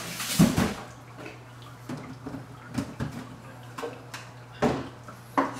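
Hard plastic parts of an aeroponic cloning machine being handled: a loud scrape as pieces are moved in the first half-second, then several separate knocks and clicks as the lid is lifted off the reservoir. A steady low hum runs underneath.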